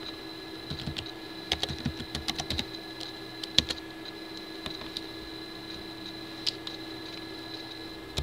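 Computer keyboard typing: a quick run of keystrokes, ending in a louder key press about three and a half seconds in, then a single click a few seconds later. A steady faint electrical hum with a thin high whine runs underneath.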